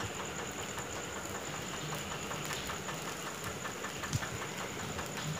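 Rava dosa batter and oil sizzling on a hot dosa griddle, a steady dense crackle of tiny pops.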